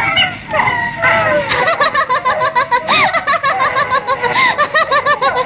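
A woman laughing heartily, high-pitched, in rapid repeated bursts that start about a second and a half in and keep going.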